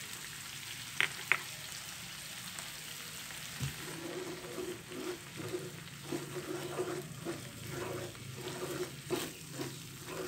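Sauce simmering and sizzling in a frying pan, with two light clicks about a second in. From about four seconds in, a wooden spatula stirs it in an even rhythm of scrapes and slops as the sauce thickens with cornstarch.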